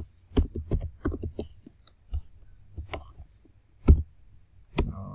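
Computer keyboard keystrokes: irregular single clicks, a quick cluster in the first second and a half, then sparser, with one louder key press near four seconds in.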